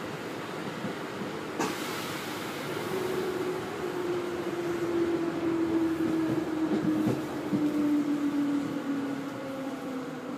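Commuter train heard from inside the passenger car: running noise with an electric motor whine that falls steadily in pitch from about three seconds in as the train slows. A sharp click about a second and a half in.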